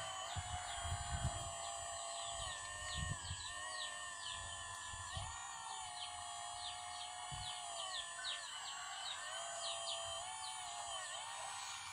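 RC hydraulic Kobelco SK200 model excavator's hydraulic pump whining steadily, its pitch dipping and recovering in steps as the boom and bucket move under load. A few dull low thumps as the bucket works the dirt, the loudest about a second in and around three seconds.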